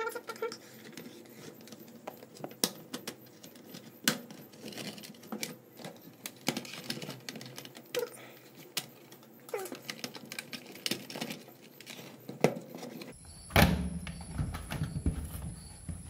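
Scattered plastic clicks and snaps from an HP 15q laptop's bottom case as its clips are worked loose by hand, mixed with knocks of the laptop being turned over and handled on a wooden table. The loudest knock comes near the end.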